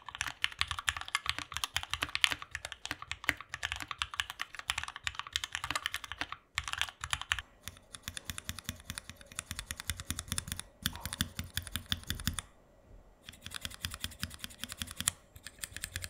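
Mechanical keyboard typing on lubed ZealPC Tealios V2 67 g linear switches under PBT keycaps, a fast run of key clacks. About halfway through it gives way to slower groups of single key presses on a small switch tester, Tealios V2 against 70 g pink Laser linear switches.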